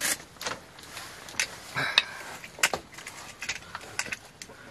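Metal cooking pots and lids clattering and knocking as they are handled, a dozen or so sharp clinks, one near the middle ringing briefly.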